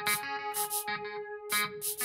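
Electronic background music: a held synthesizer note over a quick ticking beat, with the heavy bass dropped out.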